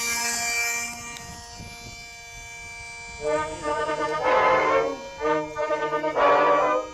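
The small brushless electric motor of an E-flite UMX Turbo Timber RC plane holds a steady high whine at launch throttle. About three seconds in, louder brass music with rhythmic horn chords takes over.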